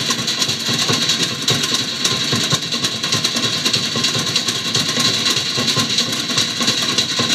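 Fast, steady drumming: a dense, unbroken run of rapid strikes.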